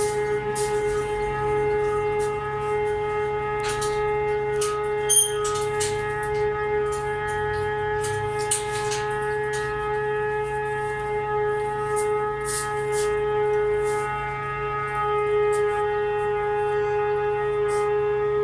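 A continuous, unchanging droning tone with overtones, like a machine or alarm hum, the noise the recordist calls annoying. Faint ticks run over it, and there is a short sharper sound about five seconds in.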